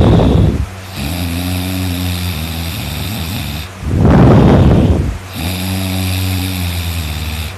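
A person snoring loudly in deep sleep: a loud rasping snore at the start and another about four seconds in, with a steady pitched drone on the breath in between.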